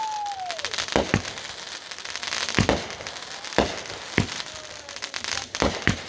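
Consumer firework going off: a whistle fades out with a falling pitch in the first second, then about seven sharp bangs, some in quick pairs, over steady crackling.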